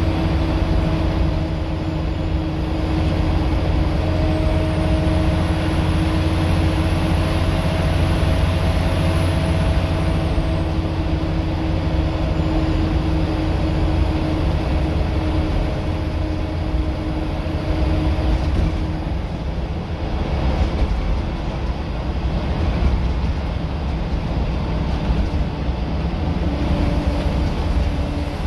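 Scania L94UB single-deck bus heard from inside the saloon under way: rear-mounted diesel engine and drivetrain running hard with a heavy low drone and a steady whine over it. The whine fades about two-thirds of the way through while the drone carries on.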